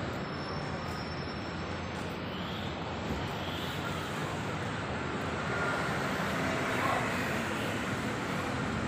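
Steady outdoor city background noise, an even hum of road traffic.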